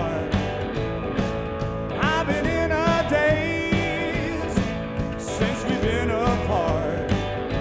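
Background music: a song with a singing voice over instruments and a steady beat.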